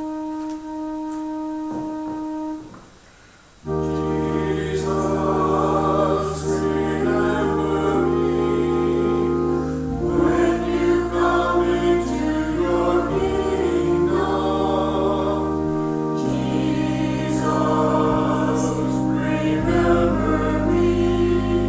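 An instrument holds a single note, then the sound dips briefly about three seconds in. After that a choir sings over sustained keyboard chords with a steady bass.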